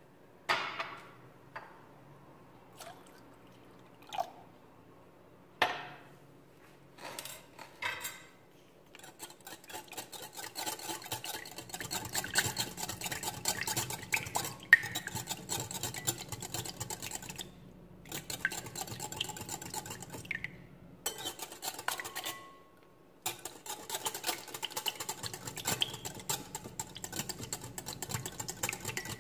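Wire whisk beating an egg mixture in a glass bowl: a fast, steady clatter of the wires against the glass that starts about nine seconds in and pauses briefly a few times. Before it come several separate knocks.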